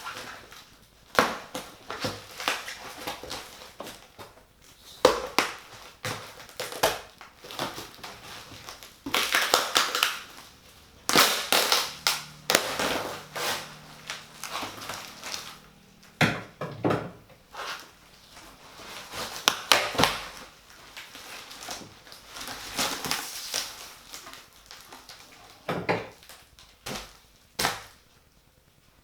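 A PC case and its packaging being handled: irregular bouts of crinkling and rustling, with scrapes and sharp knocks.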